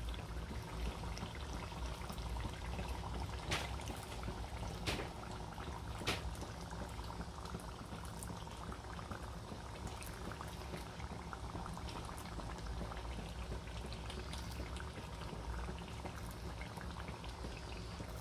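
Tomato-onion masala simmering and bubbling steadily in an aluminium pot over a low gas flame, with raw mutton meatballs just set into it. A few sharp clicks sound about 3.5, 5 and 6 seconds in.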